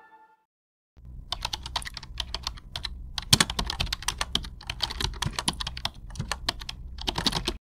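Computer keyboard typing: rapid, irregular key clicks that start about a second in and cut off abruptly near the end.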